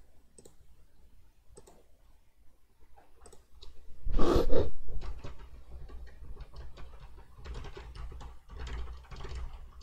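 Typing and clicking on a computer keyboard, in scattered keystrokes that come closer together near the end. About four seconds in there is one louder, brief rustling bump.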